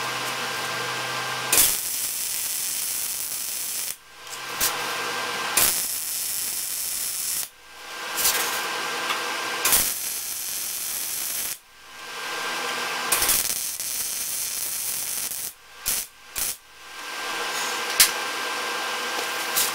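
Electric welding arc crackling and hissing in about five bursts of a few seconds each, with short breaks between: plug welds being laid through drilled holes to fuse a steel patch panel to a truck's lower fender.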